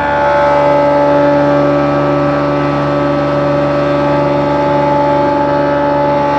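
CNC machine for machining aluminium housings running with a loud, steady whine of several tones held at a fixed pitch, which swells up right at the start.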